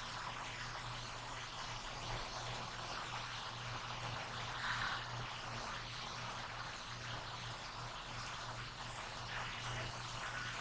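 Quiet room tone: a steady hiss with a low hum underneath, and a brief faint sound about halfway through.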